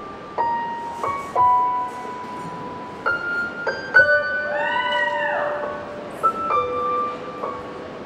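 Slow instrumental music: single piano-like notes struck a few at a time and left to ring, with a tone that glides up and back down about halfway through.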